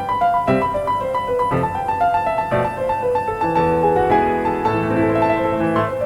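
Background piano music: single notes struck about once a second over held chords, thickening into fuller chords in the middle.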